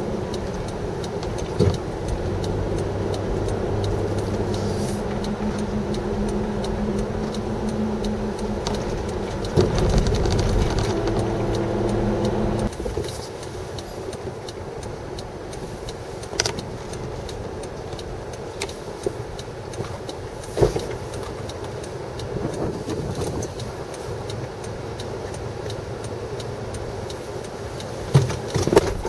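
Car engine and road noise heard from inside a moving vehicle on a wet road, a steady hum with a few level tones. About halfway through it drops to a quieter steady rumble broken by a few brief knocks.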